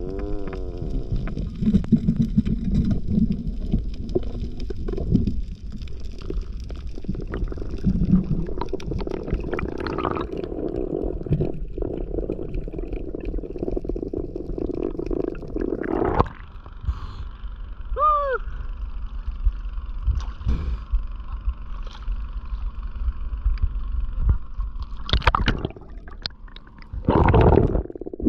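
Muffled underwater rumble and gurgling of water moving around a camera in a waterproof housing, with scattered knocks. A few louder thumps or swishes come about halfway through and twice near the end.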